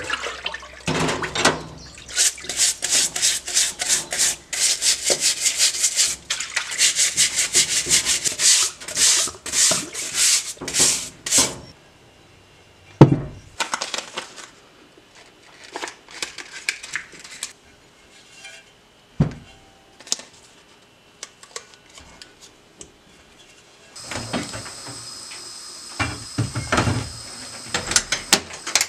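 Rapid, rhythmic scrubbing of an aluminium engine crankcase half in a parts-washer tank, about three to four strokes a second. This is followed by scattered knocks and rag rubbing as parts are handled and wiped. Near the end, a steady machine hum with a high whine starts up from a sandblast cabinet.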